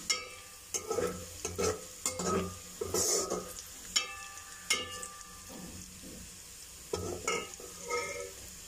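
Sliced onion frying in hot oil in an aluminium pot, sizzling as it starts to brown, while a perforated metal skimmer stirs it, scraping and clinking against the pot with a ringing tone. The stirring pauses briefly about two thirds of the way through.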